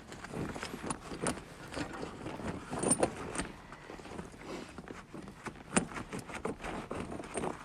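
Steel tractor tire chain clinking and rattling as it is worked up around the tire, in irregular metallic clanks, the loudest about three seconds in.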